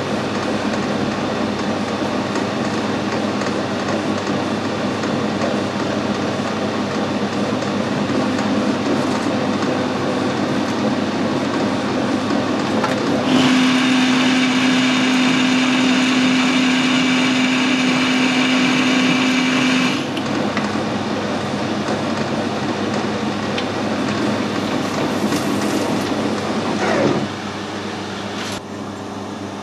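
Metal lathe running while turning a bush with light spring cuts. From about 13 to 20 seconds it is louder, with a steady hum and a hiss from the cut. Near the end the pitch drops quickly and the running goes quieter.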